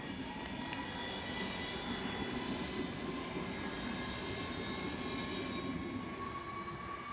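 Alstom ED250 Pendolino electric high-speed train accelerating away on departure: a high electric whine of several steady tones, one slowly rising in pitch, over the rumble of its wheels on the rails.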